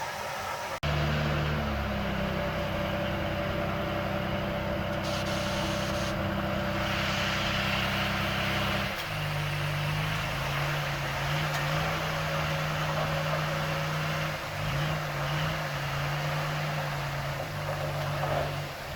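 Diesel engine of heavy earthmoving machinery running, a steady low engine note that changes abruptly about halfway through and shifts in pitch a few times after that.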